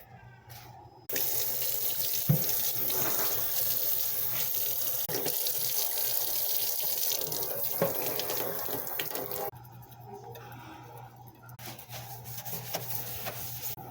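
Tap water running into a kitchen sink, starting about a second in and shutting off after about eight seconds, with a few small knocks as the sink is rinsed.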